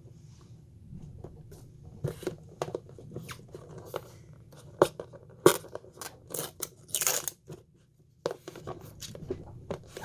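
Cardboard and plastic packaging being handled and opened: a run of short rustles, clicks and scrapes, with a longer tearing rustle about seven seconds in.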